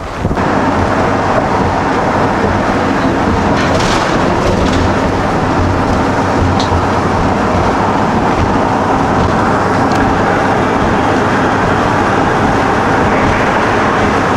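Loud, steady rumble and noise of a vehicle in motion, with a few faint ticks and rattles.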